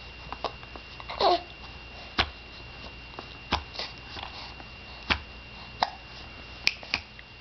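A baby hiccuping: a run of short, sharp hics, mostly one to one and a half seconds apart. About a second in there is a brief falling baby vocal sound.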